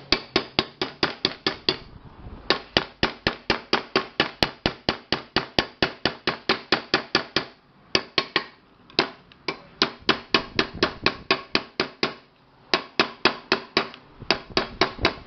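Small hammer tapping rapidly on the rim of an aluminium pressure cooker pot, about five strikes a second in runs with a few short pauses, beating the dented rim back into shape.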